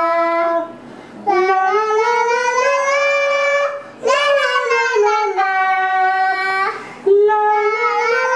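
A young girl singing unaccompanied in long, drawn-out notes. The phrases last about two to three seconds each, with short breaks between them.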